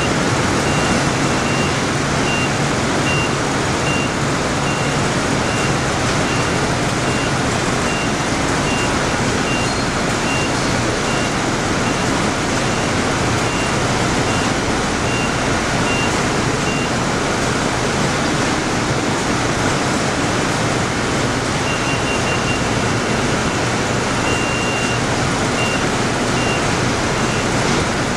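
Steady loud din of newspaper mailroom machinery, with an Egemin laser-guided vehicle's warning beeper giving a high beep about twice a second; the beeping stops for a stretch in the middle and starts again near the end.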